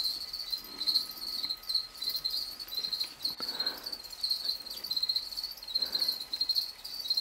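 Crickets chirping continuously in quick, even pulses.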